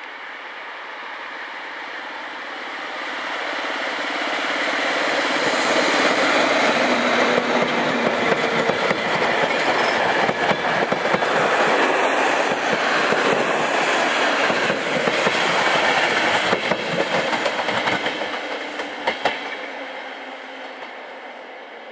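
EP07 electric locomotive and its passenger coaches passing by. The rumble of the train grows over the first six seconds and holds loud with wheels clicking over rail joints, then fades as the last coach draws away.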